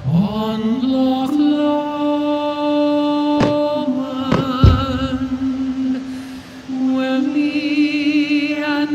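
Slow music of long held notes, with two sharp bangs of firework shells bursting about three and a half and four and a half seconds in.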